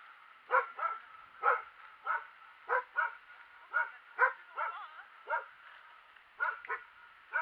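A dog barking repeatedly: about eleven short barks at an uneven pace, with a pause of about a second near the end.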